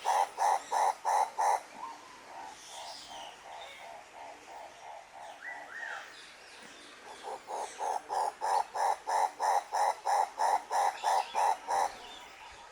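An animal calling in a fast rhythmic series, about three to four pulsed notes a second, fading for a few seconds in the middle and then coming back strongly for about five seconds. A short rising bird chirp sounds about halfway through.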